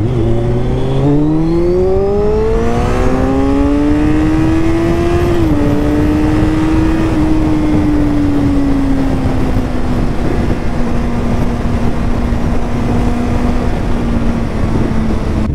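Sport motorcycle engine accelerating hard, its pitch climbing for about five seconds, dropping slightly at a gear change, then settling into a steady high-speed cruise. Heavy wind noise runs under the engine.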